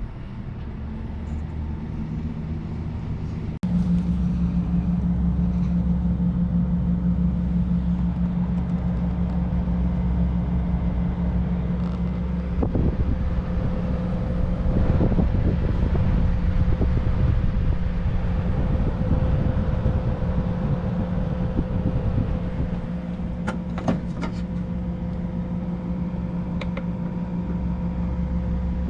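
A machine running with a steady low hum. Several fixed tones sit under a rumbling drone, and the hum jumps louder about three and a half seconds in, with a few faint clicks later on.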